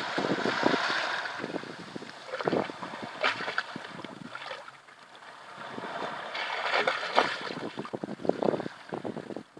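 Water gurgling and sloshing through a small underwater tunnel, in irregular surges that swell and fade every second or two.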